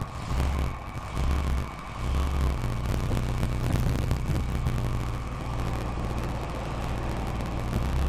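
BMW M3 GT4 race car's V8 idling with a deep, steady rumble, its note rising briefly twice in the first two seconds.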